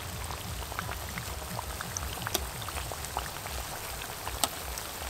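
Battered potato chops deep-frying in hot oil in a metal wok: a steady, dense crackling sizzle, with a couple of sharper ticks partway through.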